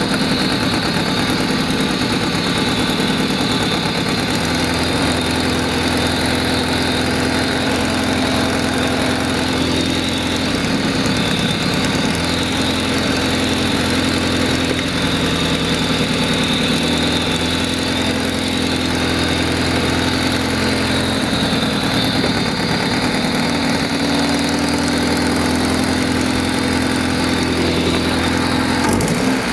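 Honda D16Y7 1.6-litre four-cylinder engine idling steadily, in an engine being checked for a misfire.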